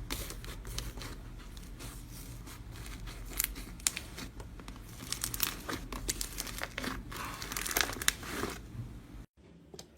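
Slime being squeezed and worked by hand, making a dense run of crackling, clicking pops. It cuts off suddenly near the end.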